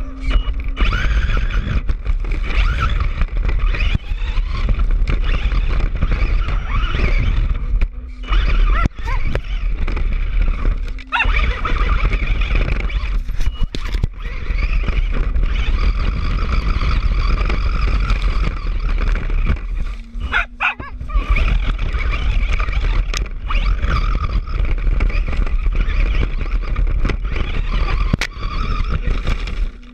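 Brushless electric RC car driving hard over rough ground: a motor whine rising and falling over a constant rumble of tyres and chassis, with a few brief drops as it bounces or lifts off.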